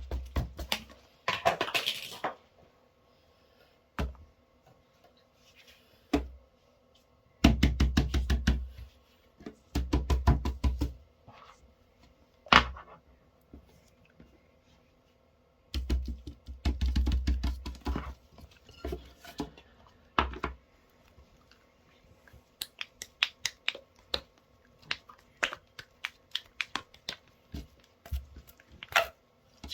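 Fidget toys being handled and pressed on a table: runs of quick clicks and soft thumps lasting a second or two at a time, with single clicks between and many scattered clicks near the end.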